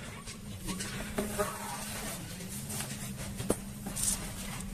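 Wood fire under a saj griddle crackling faintly, a few sharp clicks over a low steady hum.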